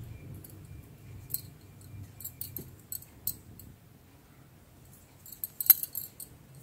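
Faint clicks and light rustling of hands sewing a knitted woolen piece with a needle and yarn, with a sharper click about five and a half seconds in, over a low steady hum.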